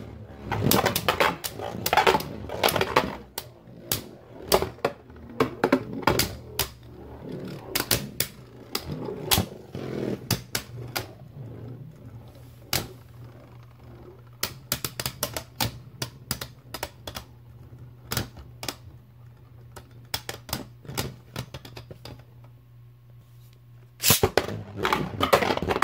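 Two Beyblade Burst spinning tops, Dusk Balkesh B5 and Right Artemis A5, clacking against each other and the plastic stadium walls in sharp, irregular clicks, dense at first and sparser later, over a low steady hum. Near the end there is a louder burst of clattering as a top is picked up and handled.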